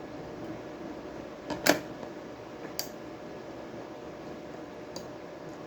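A few sharp little clicks of tools being handled on a workbench during soldering, the loudest about a second and a half in, over a steady low hum.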